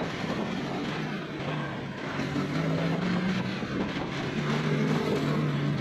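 Road traffic at low speed: a steady engine hum whose pitch wavers slightly, from the Honda scooter and the cargo truck just ahead, over road and wind noise.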